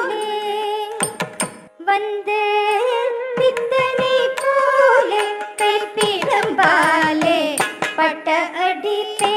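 Live Carnatic music for Bharatanatyam: a female singer's ornamented melody, sliding and wavering in pitch, over sharp percussion strokes.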